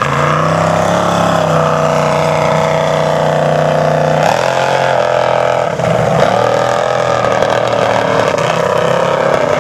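Formula Offroad hillclimb buggy's engine running hard at high revs under full load up a steep sand slope. It holds a steady pitch, shifts down slightly about four seconds in, then holds again.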